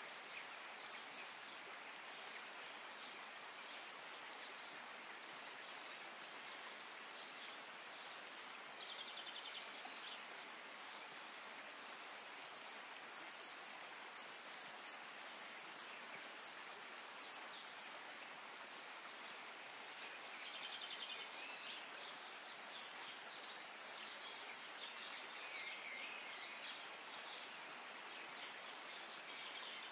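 Outdoor nature ambience: a steady soft hiss with small birds chirping and trilling in short spells now and then.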